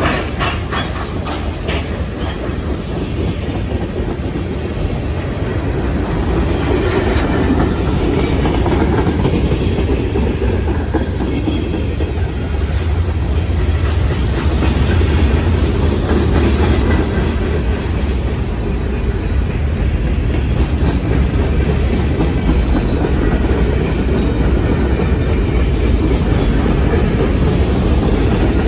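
Freight cars of a long manifest train rolling past close by: a steady rumble of steel wheels on rail, with a run of wheel clicks over rail joints near the start. It grows louder a few seconds in and then holds.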